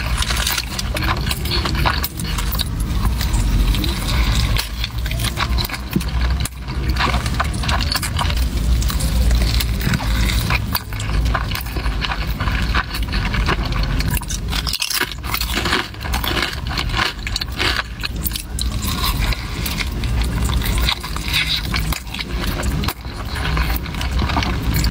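Close-up chewing and mouth noises from eating a burrito, full of small wet crackles and clicks, over a steady low rumble.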